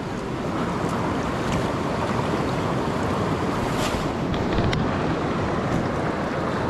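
Steady rush of a flowing mountain creek, with a few faint ticks a little past the middle.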